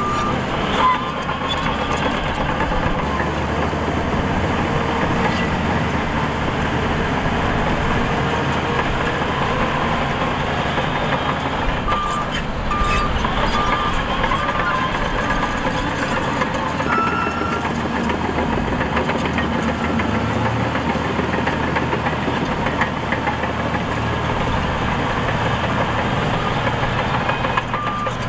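Diesel engines of a Shantui DH17C2 bulldozer and a Shacman dump truck running steadily as they work. A reversing alarm beeps in short runs near the start, about twelve seconds in, and again near the end.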